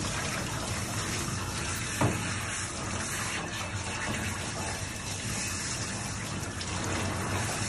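Water spraying steadily from a hand-held hose nozzle onto a wet dog's coat in a stainless steel grooming tub, rinsing out the shampoo. A brief knock about two seconds in.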